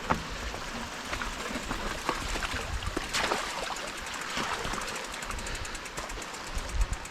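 Creek water running over rocks, with scattered knocks and clatter through it.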